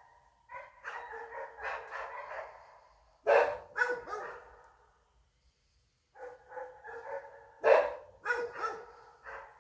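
Dog barking and baying in two bouts with a short quiet pause between them: drawn-out calls with a few sharp, louder barks in each bout.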